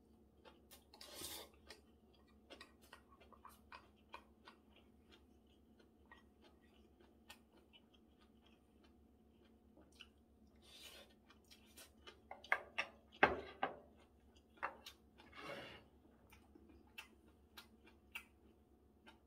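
Close-up eating sounds: chewing with many small wet mouth clicks, and a short slurp of glass noodles (japchae) about a second in. More short slurps and clicks follow in the second half, with a sharp knock about two-thirds of the way through, the loudest sound.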